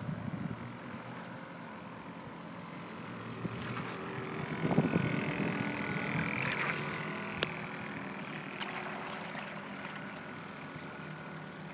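A scratch-built radio-controlled model pilot boat running on the water: a steady motor hum with water wash. It grows louder around the middle as the boat passes close, and a few sharp clicks come later.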